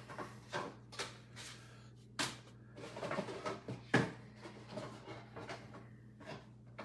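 Scattered light knocks, clicks and rustles of something being handled off camera, over a steady low electrical hum. The loudest knocks come about two seconds in and about four seconds in.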